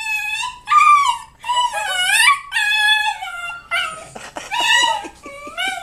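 Siberian husky puppy making a string of high, drawn-out whining howls that bend up and down in pitch, broken by a quick run of short yips about four seconds in. She is worked up at the sight of a turkey outside.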